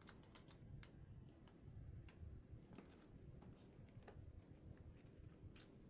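Faint, irregular small clicks and taps from handling a smartphone and its parts during reassembly, with one sharper click about five and a half seconds in.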